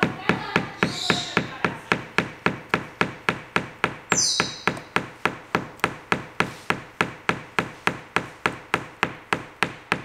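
Galah cockatoo hammering its beak against the side of its box: a fast, even run of knocks, about four a second.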